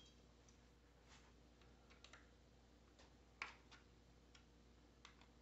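Faint, scattered light clicks and taps as hands handle a motorcycle's plastic side cover and its fittings, the clearest about three and a half seconds in.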